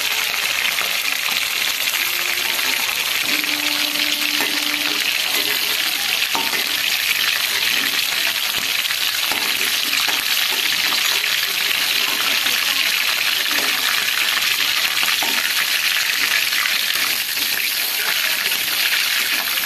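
Marinated chicken pieces frying in hot oil in a pan, a steady, even sizzle.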